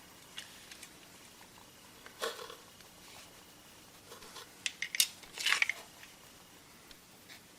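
Light metallic clicks and knocks of a Smith & Wesson M&P40 pistol being handled, with a quick run of sharp clicks about five seconds in.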